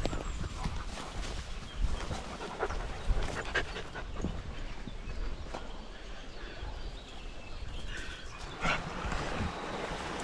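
Dogs panting, warm and worked hard, with scattered small clicks and knocks.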